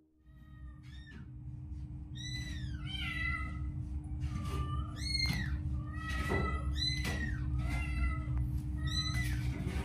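Small kittens mewing over and over in short, high-pitched calls, starting about a second in, over a steady low rumble.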